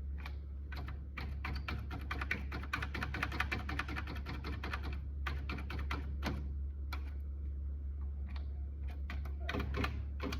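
Electric typewriter keys striking in a fast run of typing, then slower, scattered keystrokes, over a steady low hum.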